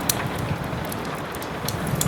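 Wood fire crackling in a fireplace, with a few sharp pops, over a steady hiss of soft rain.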